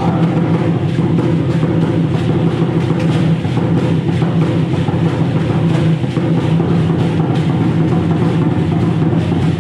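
Loud, steady drumming on large upright drums, the accompaniment of an Aztec-style dance.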